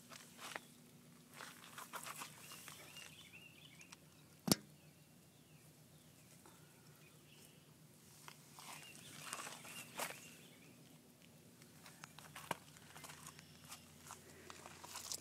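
Footsteps and handheld-camera handling noise, scattered crunches and rustles, with one sharp knock about four and a half seconds in; a faint steady low hum runs underneath.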